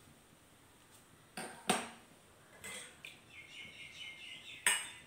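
About five sharp, irregularly spaced clicks from a gas stove's spark lighter being clicked to light the burner.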